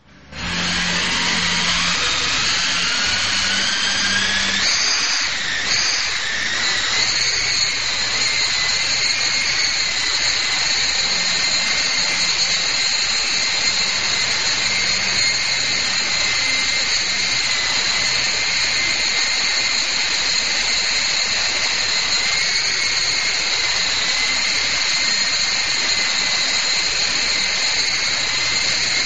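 Electric motors and rotors of a Lama V3 coaxial RC helicopter whining. The pitch climbs over the first few seconds as the rotors spool up, then holds a steady high whine in flight with small pitch wobbles.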